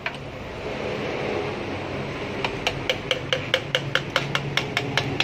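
Rapid hammer blows on metal at the stripped block of a seized Mitsubishi L300 petrol engine, about five a second, starting about two and a half seconds in. A steady mechanical hum runs underneath.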